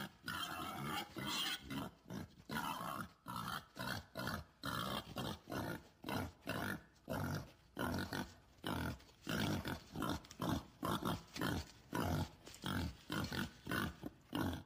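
Warthog grunting in a fast, steady series, about two short grunts a second.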